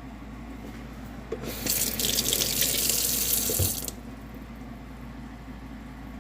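Water tap running into a sink for about two and a half seconds, turned on about a second and a half in and shut off near the four-second mark.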